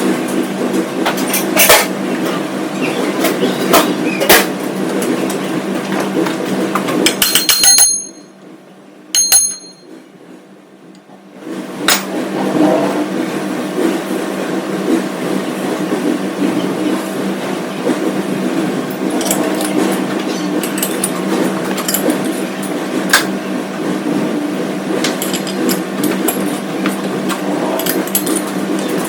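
Metal lathe running steadily with a low hum and scattered clicks and ticks. The sound drops away for about three seconds about eight seconds in, then picks up again.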